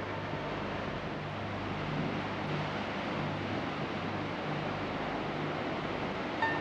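Steady rush of falling water from a waterfall, with a low sustained music drone beneath it.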